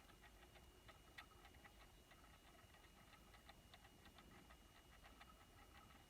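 Near silence: faint rapid ticking, several ticks a second, over a faint steady high hum.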